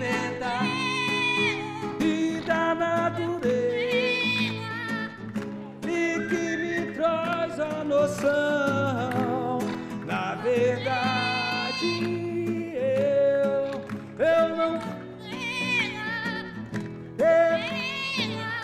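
Music: a song with a sung melody over plucked guitar accompaniment.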